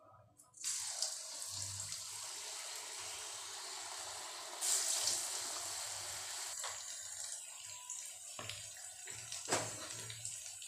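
Batter-coated potato balls going into hot oil in an iron kadhai, setting off a sudden loud sizzle of deep frying about a second in. The sizzle swells again near the middle as more are dropped in, and a few sharp clicks come in the second half.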